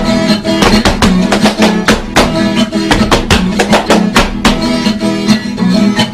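Instrumental sertanejo music: acoustic guitar strummed in a quick steady rhythm.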